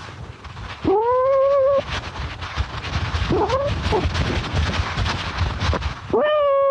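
A cat meowing close to the microphone: a long meow about a second in, a shorter, fainter one midway, and another starting near the end. Between them is rustling and scuffing from the tiny camera worn on the cat's body.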